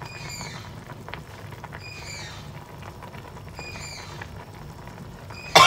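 Braising sauce with mackerel scad simmering in a pan, a soft steady bubbling and crackling. A faint high chirp repeats about every two seconds, and a loud cough comes right at the end.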